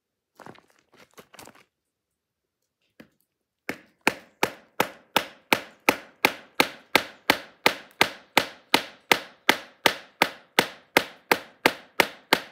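Ceramic knife blade worked into hard wood: a few faint scrapes, then from about four seconds in a steady run of sharp strikes into the wood, nearly three a second.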